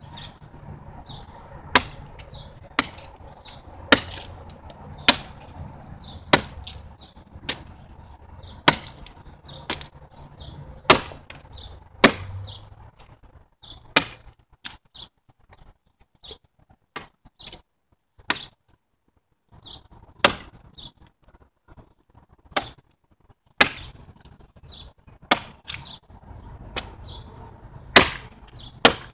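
A machete chopping into a wooden pole: sharp blade strikes on the wood, roughly one a second, with a few short pauses.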